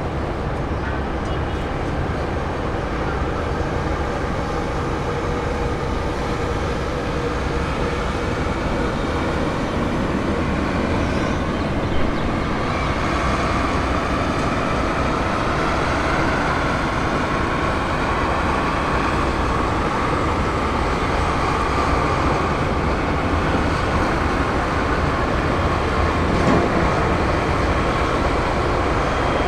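Widebody jet airliner's turbofan engines on approach: a steady low rumble, with an engine whine that comes in about halfway through and grows louder.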